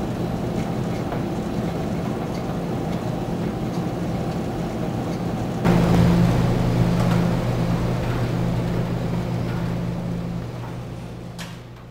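Commercial coin-operated clothes dryers running with a steady machine hum and rumble. It gets suddenly louder about six seconds in, then fades near the end, where there is a brief click.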